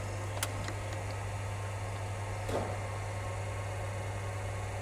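Steady low electrical hum with a faint background hiss, and a faint click about half a second in.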